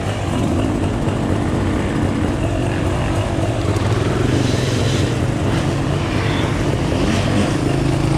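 Dual-sport dirt-bike engines running steadily at low speed, close to the microphone.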